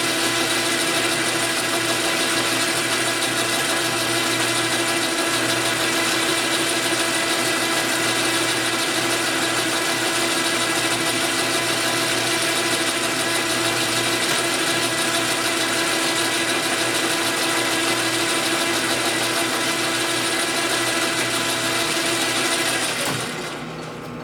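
JET metal lathe running under power through a turning pass: a steady hiss with a whine of several steady tones from the gear drive. It shuts off about 23 seconds in and the sound falls away quickly.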